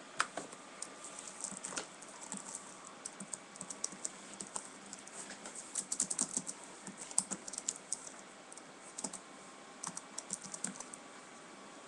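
Typing on a computer keyboard: irregular runs of key clicks with short pauses, busiest around the middle.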